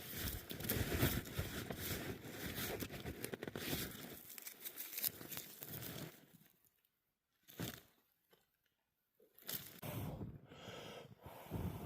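Rustling, crinkling and tearing of dry material handled by hand, full of small crackles. It stops about six seconds in, with one brief burst near eight seconds, and starts again near ten seconds.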